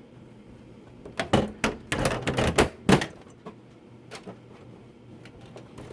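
Handling noise from hardware being moved about inside a desktop PC: a quick cluster of sharp clicks and knocks about a second in, lasting around two seconds, over a faint steady low hum.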